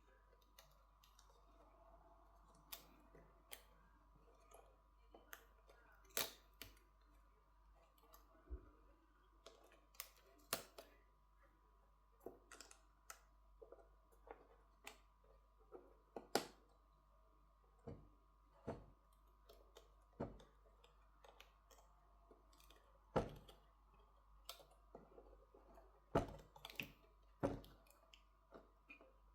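Sparse, irregular small clicks and taps of tools and internal parts on a Motorola Moto G60 smartphone being reassembled, over a faint steady hum.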